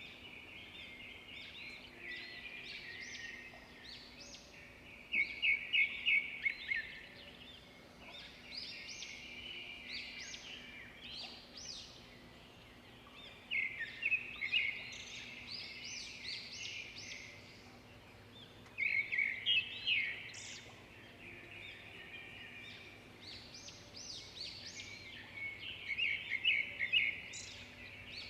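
Birdsong: bouts of rapid, high chirping and trilling that return every few seconds, over faint steady outdoor background noise.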